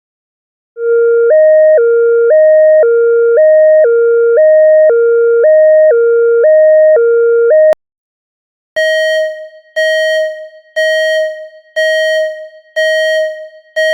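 Electronic hi-lo two-tone alarm, switching back and forth between a lower and a higher pitch about every half second for roughly seven seconds. After a click and a brief pause, a different electronic alarm beeps on one pitch about once a second, each beep fading away.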